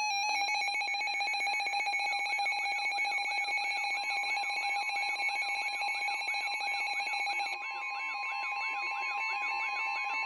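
Several weather-alert radios sounding their emergency alert tones at once, signalling a severe thunderstorm warning. The mix holds a steady pulsing alert tone and a quickly repeating warble. From about four seconds in, the steady NOAA Weather Radio 1050 Hz warning alarm tone joins them. Part of the mix cuts out a little past halfway.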